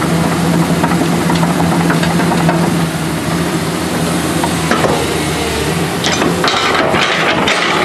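The 2005 Komatsu PC200LC-7 excavator's six-cylinder SAA6D102E-2 turbo diesel runs steadily. In the last couple of seconds a burst of metallic clanking comes in over the engine.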